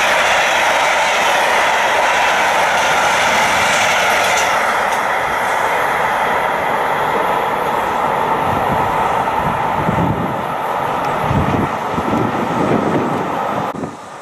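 Freight wagons rolling on rails. First a container train passes close by with steady wheel-on-rail noise; about halfway the sound turns duller and lower, with gusty low rumbles.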